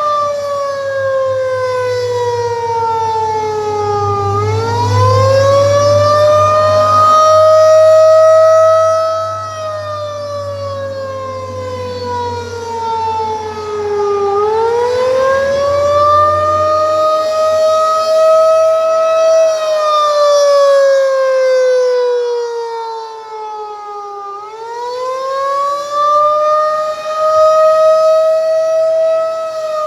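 Federal Signal 2001-DC outdoor warning siren sounding its attack signal: one loud tone that glides up over about five seconds, holds briefly, then slides down, repeating about every ten seconds. Its loudness swells and fades as it goes.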